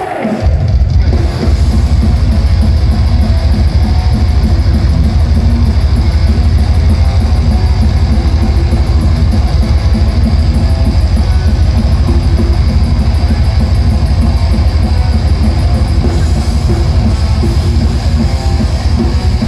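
Thrash metal band playing live through a loud PA: heavily distorted electric guitars, bass and fast drumming. After a brief lull at the very start the full band comes back in and keeps up a fast, driving riff.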